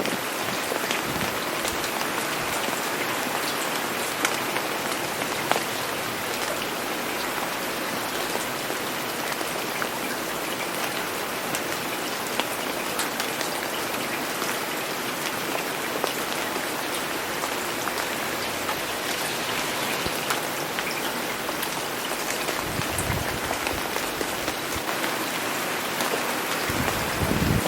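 Steady rain falling, with scattered individual drops ticking, and two brief low rumbles in the last few seconds.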